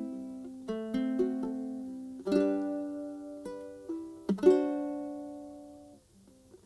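Background music of plucked-string chords, struck about every two seconds, each ringing and fading away. There is a brief pause just before the end.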